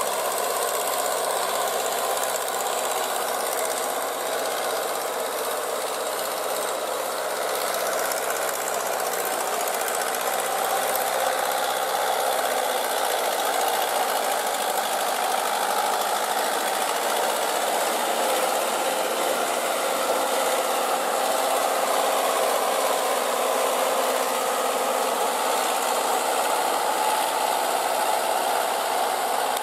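Diesel tractor engine running steadily under load as the tractor churns through flooded paddy mud on cage wheels.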